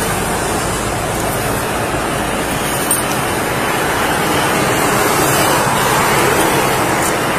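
Steady rushing noise on a body-worn camera's microphone, with one faint click about three seconds in.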